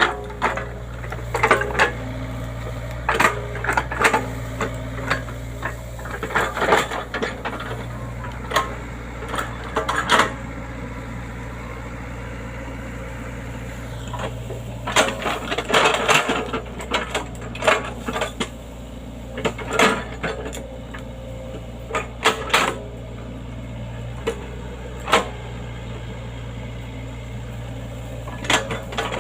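Excavator working, its engine running at a steady low hum under frequent sharp metallic clanks and knocks, in irregular clusters.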